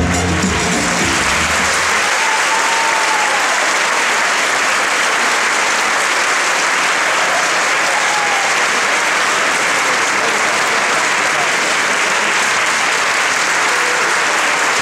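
Audience applauding, loud and steady, as the last of the dance music dies away in the first couple of seconds.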